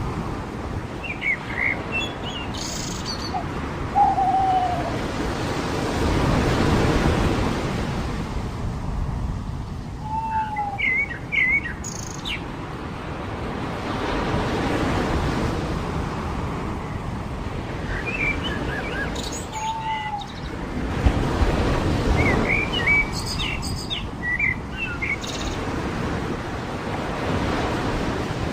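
Ocean surf rolling in and washing out in slow swells every seven seconds or so, with birds calling over it: a short low down-slurred call repeated every few seconds, and bursts of high chirps.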